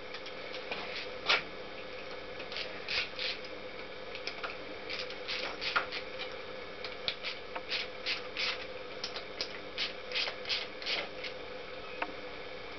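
Hands working with tools and metal engine parts: irregular light clicks, taps and scrapes, over a faint steady hum.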